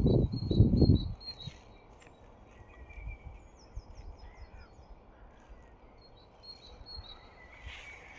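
Small birds singing and chirping outdoors: short repeated high notes and quick runs of chirps that come and go over faint background noise. A loud, low rumble in the first second, like wind hitting the microphone.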